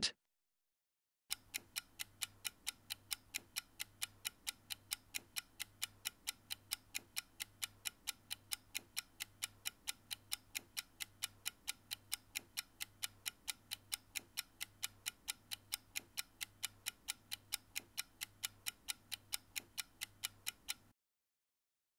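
Clock-ticking sound effect counting down a 20-second answer timer: an even, fast run of ticks that starts about a second in and stops shortly before the end.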